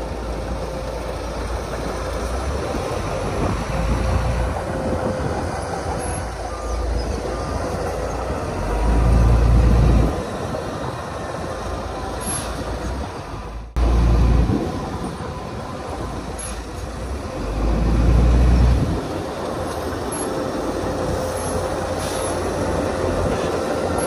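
Crawler bulldozers at work: diesel engines running steadily under the clatter of steel tracks, with a faint steady whine. Three heavier low rumbles swell and fade, around a third of the way in, just past halfway and about three quarters through.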